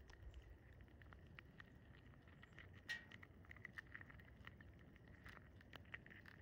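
Near silence with faint, scattered light ticks and taps, one a little stronger about halfway through, from small birds pecking and hopping at a seed feeder.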